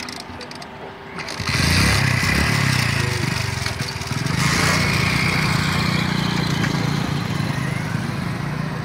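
Small motorcycle engine running as the bike rides along, a steady low drone that comes in loudly about a second and a half in, with wind rushing over the microphone.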